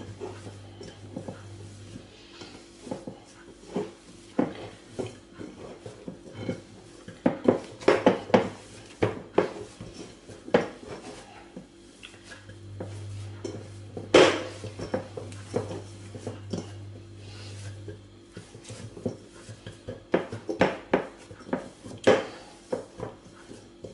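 Spelt shortcrust dough being kneaded and pressed by hand in a glass mixing bowl: irregular knocks and clinks of hands and dough against the glass, the loudest about 8 and 14 seconds in.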